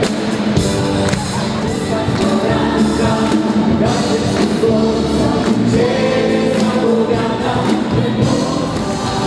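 Live band playing a lively song with a crowd of voices singing along, drum strikes keeping a steady beat.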